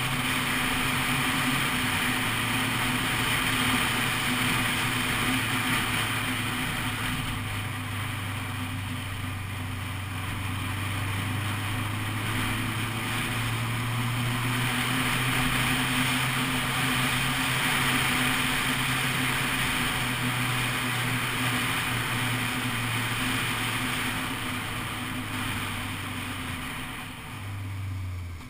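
Honda CBF 600 SA's inline-four engine running at a steady road pace under a broad rush of wind and road noise. The engine note eases off near the end.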